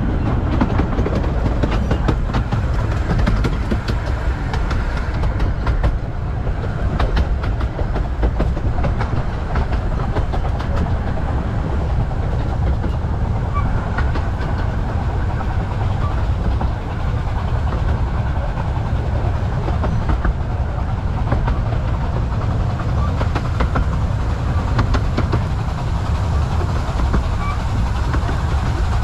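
Romney, Hythe and Dymchurch Railway 15-inch gauge train running along the track: a steady rumble with the wheels clicking over the rail joints.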